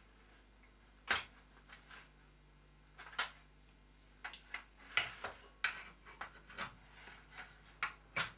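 Irregular clicks and knocks of hard parts being handled and fitted together, with a few sharper clacks about a second in, just after three seconds and around five seconds.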